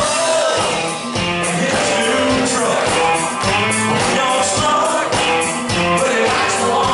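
Live country band playing a song with electric guitars, bass and drums keeping a steady beat, and a male lead singer singing into a microphone.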